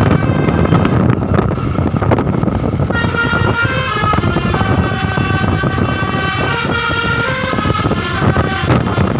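A bus's telolet multi-tone air horn plays a melody of changing notes, starting about three seconds in and lasting about six seconds. Loud road rumble runs underneath.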